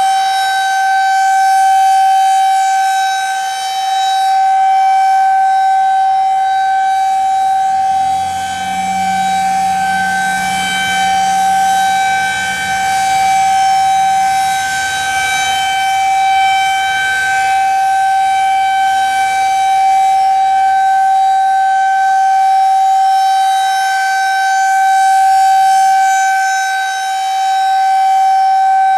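Outdoor tornado warning siren sounding a loud, steady tone that holds one pitch without gliding. Its loudness swells and fades every few seconds.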